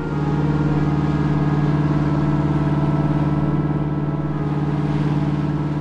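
Boat's Detroit Diesel engine running steadily under way, a constant low drone.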